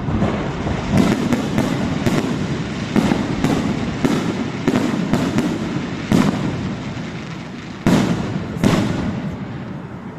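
Fireworks exploding in quick succession: about fifteen sharp bangs, each followed by an echoing rumble. The two loudest come near the end, and then the sound dies away.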